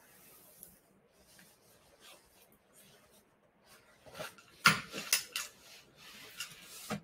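Handling noise: faint rustling, then about four seconds in a quick run of sharp clicks and rustles, as objects are handled on a desk, followed by softer rustling.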